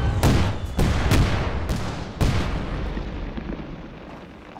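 A rapid series of explosions from incoming shelling, about five blasts in the first two and a half seconds, each with a deep rumble. The rumble then fades away.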